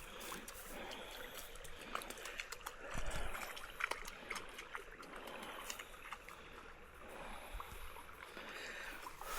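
Shallow seasonal meltwater stream running and trickling, with scattered small splashes as dogs wade and play in it. A brief low rumble about three seconds in.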